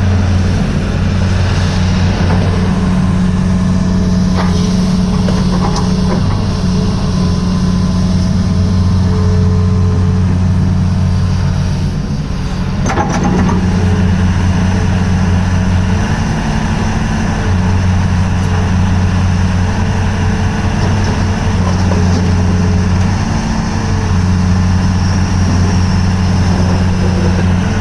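Diesel engine of a Tata-Hitachi ZX220LC-GI hydraulic excavator running, its low steady tone dipping and shifting a few times. A short clack comes about halfway through.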